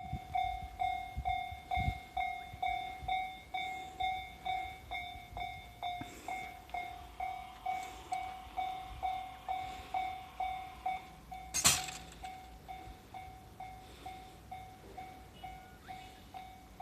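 Japanese railway level-crossing warning bell ringing steadily, about two strikes a second, signalling that a train is approaching. A single sharp bang about twelve seconds in is the loudest sound.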